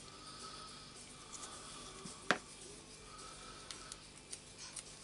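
Small metal parts of a Makita BDF456 drill's planetary gear assembly being handled, with one sharp click a little over two seconds in and a few light ticks near the end.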